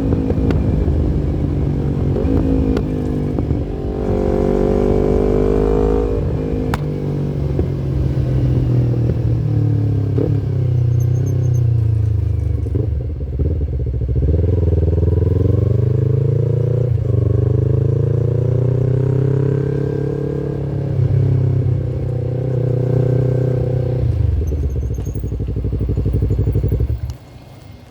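Yamaha MT-25's 250 cc parallel-twin engine running, its pitch rising and falling again and again as it revs up and drops back. The engine sound drops away sharply near the end.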